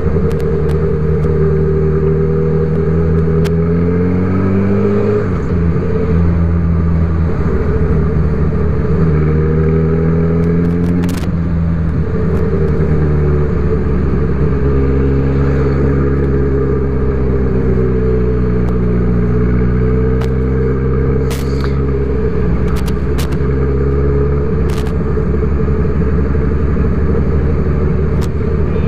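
Honda CB1000R inline-four engine running as the motorcycle is ridden, its note rising under throttle and dropping back several times, with a few brief clicks.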